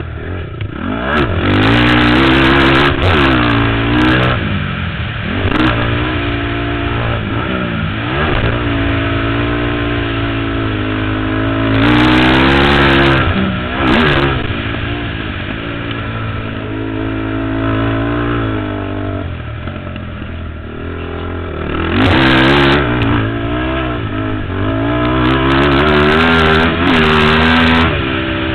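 ATV engine being ridden hard: it revs up and down again and again as the throttle is opened and closed. The loudest pulls come a couple of seconds in, near the middle, and near the end.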